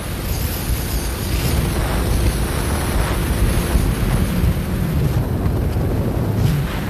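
Wind buffeting the microphone over the steady low rumble of a motorcycle engine under way.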